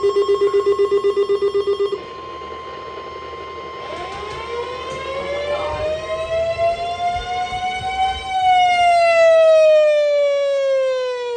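Warning siren winding up in pitch from about four seconds in, peaking near eight seconds and then winding down. It is the alert signal ahead of a broadcast severe thunderstorm warning. Before it, a fast-pulsing buzzy alert tone stops about two seconds in, and a steady high tone runs under the start of the siren.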